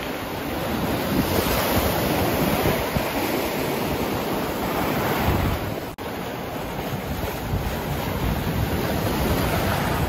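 Sea surf breaking and washing in foam over dark rocks on a pebbly shore, a continuous rush of water, with wind rumbling on the microphone. The sound drops out for an instant about six seconds in.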